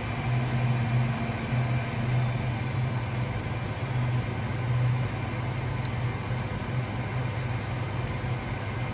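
Cockpit noise of a Cirrus SF50 Vision Jet on short final: a steady low hum with a faint pulse under an even rush of air and single turbofan noise, with one brief click about six seconds in.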